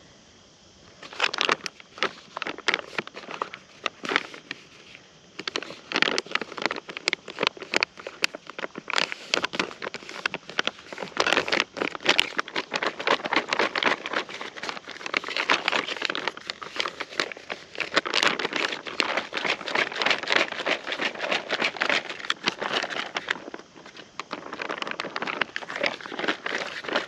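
Backpacking meal pouch of granola and water being shaken, a dense, rapid crinkling and crackling of the pouch with the contents sloshing and rattling, starting about a second in and pausing briefly a few times.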